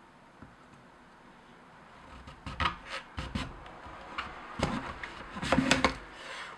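Rubbing and light knocking of objects being handled, in two short clusters, about two and a half and four and a half seconds in.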